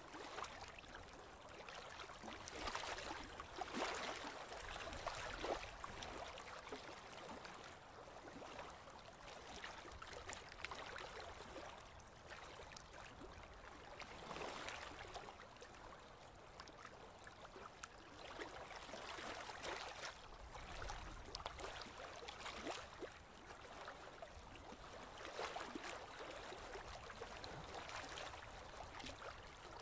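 Water lapping and gurgling against the hull of a slowly moving boat, a faint hiss that swells into a louder splash every few seconds.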